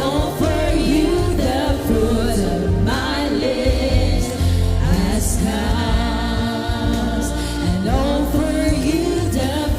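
Worship singing with band accompaniment: voices singing a slow Christian praise song over steady bass and keyboard.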